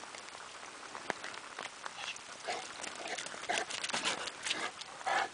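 Footsteps on a wet asphalt road: a Neapolitan Mastiff's paws and a walking man's shoes, heard as irregular light scuffs and clicks, with a louder scuff near the end.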